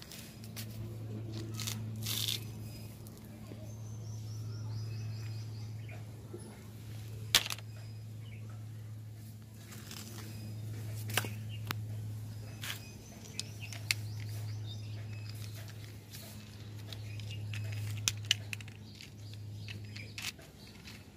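Dry palm-leaf sheaths crackling, rustling and snapping as they are handled and dragged over concrete, in scattered sharp crackles, the loudest about seven seconds in. A steady low hum that slowly swells and fades runs underneath, with a few faint bird chirps.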